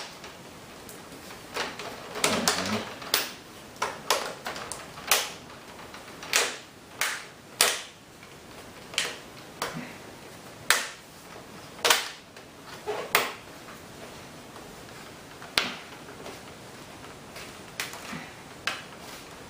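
Plastic laptop screen bezel clips snapping into place as the trim is pressed around the display, a string of irregular sharp clicks and snaps that thin out near the end.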